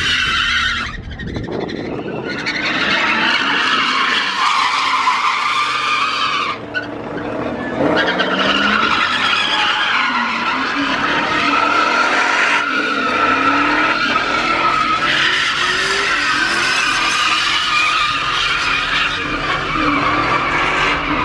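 Tires squealing continuously as a lowered pickup truck spins donuts, its engine revving underneath; the squeal wavers in pitch and falls off briefly about a second in and again around seven seconds.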